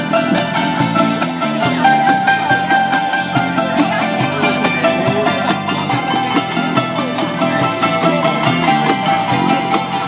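Thai folk ensemble playing live: several khim hammered dulcimers struck with thin sticks in quick, dense strokes, with a phin lute and a cajón and hand drums keeping the beat.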